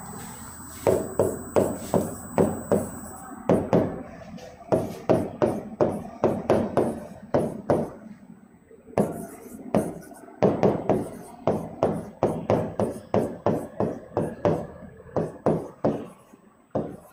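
Writing on a board: a long run of short, sharp taps and knocks, about three a second, with a short pause about eight seconds in.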